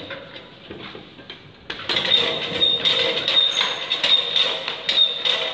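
Pedal-driven bicycle air compressor being pedalled: its chain drive and the two oscillating piston pumps it drives clatter and squeak in a quick rattle with a thin high squeal. The rattle turns loud about a second and a half in.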